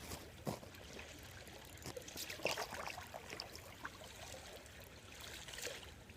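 Creek water running and trickling, with scattered faint clicks.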